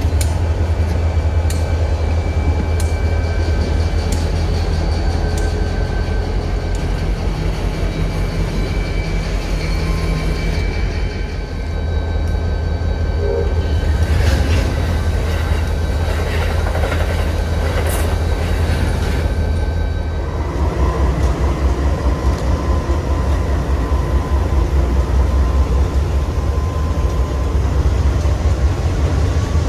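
Diesel freight locomotives passing at close range, their engines making a deep rumble throughout. In the middle stretch the wheels clank and rattle over the rails as the cars and trucks roll by.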